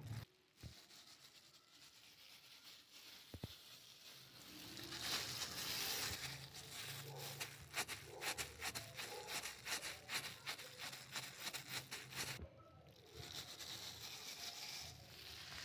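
Thin plastic food-prep glove crinkling and rustling as a hand presses and flattens soft coiled paratha dough on a floured counter, with a run of rapid little crackles through the middle and a brief break about three-quarters through.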